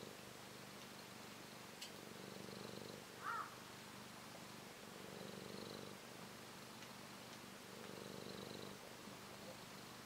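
Ginger tabby cat purring steadily in its sleep, the purr swelling with each breath about every three seconds. A brief high chirp sounds about three seconds in, and a faint click a little before it.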